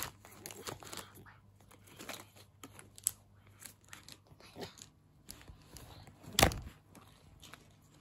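Plastic toy animals and a plastic basket being handled: scattered light clicks, knocks and rustles, with one louder thump about six and a half seconds in.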